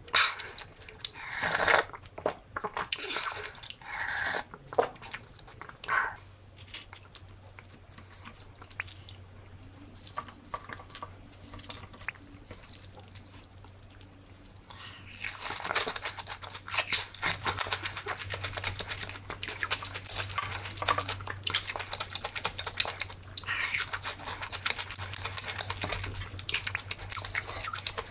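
Eating sounds: a few separate mouth sounds and lip smacks at first, then, from about halfway, dense rapid crunching and chewing of a bite of breaded fried shrimp.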